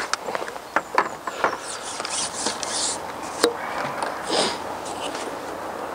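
Handling noises from fishing tackle on a seat box: a handful of short sharp clicks and knocks, mostly in the first second and a half and once more near the middle, with brief rustling in between.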